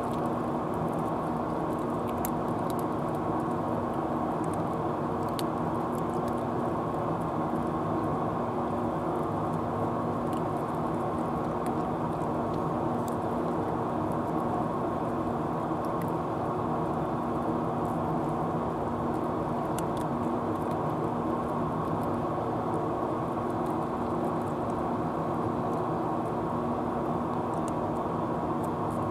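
A steady mechanical drone with several fixed pitches, unchanging throughout. Over it come faint, scattered sharp ticks, which fit cats crunching dry kibble.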